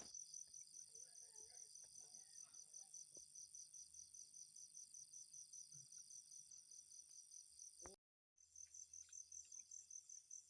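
Faint, steady chorus of insects: a high, rapidly pulsing trill that runs on unchanged, broken by a brief total dropout about eight seconds in.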